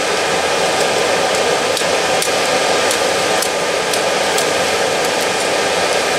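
Charcoal forge fire under forced air from a blower: a steady loud rushing of air and flame, with scattered sharp crackles from the burning charcoal throwing sparks.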